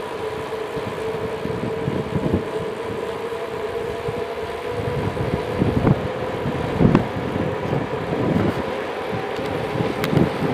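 Wind buffeting the microphone and tyre noise from a mountain bike descending a paved mountain road at speed, with a steady whine underneath.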